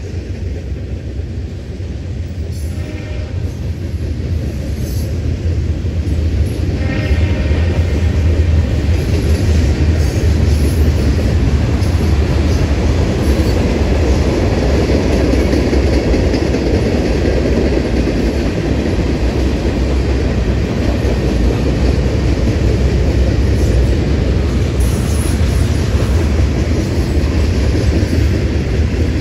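Freight train cars, covered hoppers and tank cars, rolling past: a steady rumble of steel wheels on rail that grows louder over the first several seconds and then holds.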